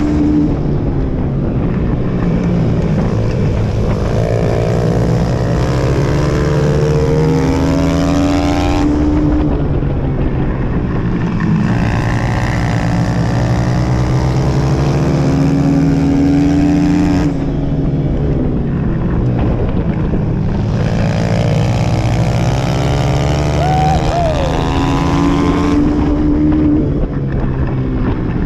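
Small dirt-track motorcycle engine heard from onboard, racing laps: the pitch climbs as it pulls down each straight, then falls away as the throttle comes off into the corners, about every eight seconds.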